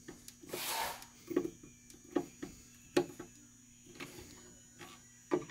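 Hand screwdriver turning a long 1-inch screw through a drawer front into a handle: scattered light clicks and creaks as the screw turns and the hand regrips, with a short hiss about half a second in.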